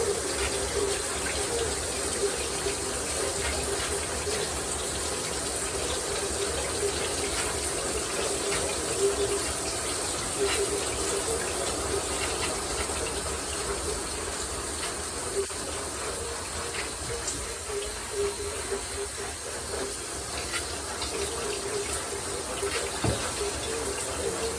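Shower running: a steady hiss of spraying water that doesn't change.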